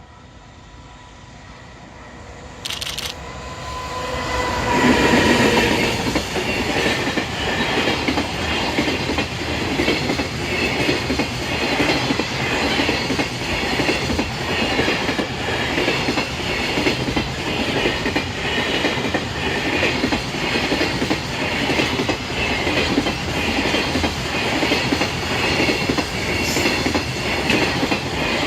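Level-crossing alarm bells ringing as an EF210 electric locomotive approaches. About four seconds in, the locomotive and a long freight train pass close by, and the wagon wheels keep up a steady, rhythmic clickety-clack over the rail joints.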